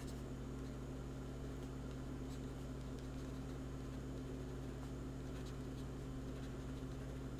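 Steady low electrical hum over faint hiss, with a few faint light ticks of a stylus on a tablet as words are handwritten.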